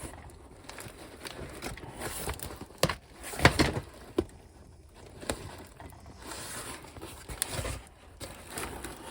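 Cardboard shipping box and its packing material being handled and opened, with rustling and scattered sharp knocks and clicks.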